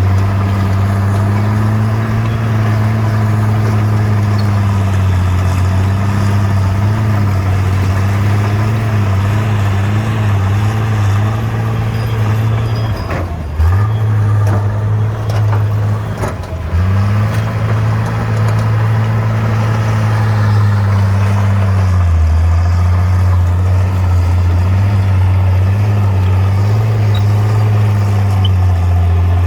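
Bulldozer's diesel engine running steadily. Its note dips sharply twice near the middle, then settles lower for a while later on.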